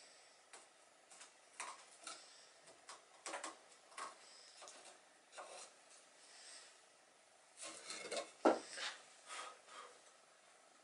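Light, irregular handling sounds of wood on wood: a cut wooden hull slice being shifted and slid across a red-deal board, with short scrapes and a louder knock about eight seconds in, and a felt pen scratching marks onto the board.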